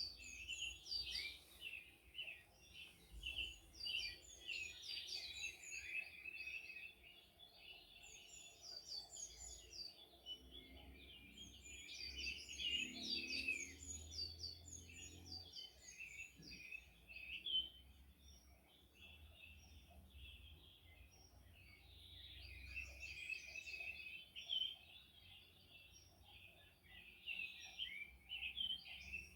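Many small birds chirping and singing at once, a dense chorus of quick high notes that thins out for a few seconds about two-thirds of the way through before building again.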